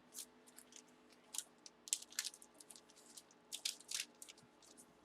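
Faint crinkling and crackling of plastic packaging as it is handled, in several short flurries.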